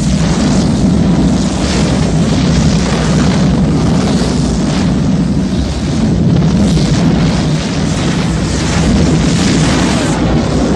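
Movie sound effects of a dragon's fire blast and the explosions of flame it sets off: a loud, continuous rushing rumble with no let-up.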